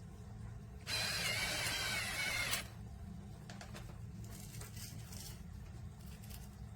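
Electric pepper grinder motor whirring for nearly two seconds, grinding pepper, followed by a few faint clicks.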